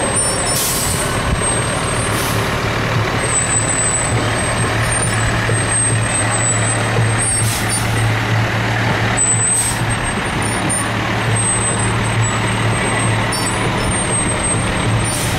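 Diesel fire engine running as it rolls slowly past: a steady low engine hum under a constant wash of noise, with a few short hisses.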